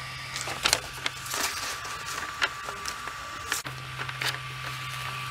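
Sheets of paper rustling and snapping as they are handled, with several sharp crackles, over a steady faint hum and whine from an Ender 3 V2 3D printer; the low part of the hum drops out about a second in and comes back past halfway.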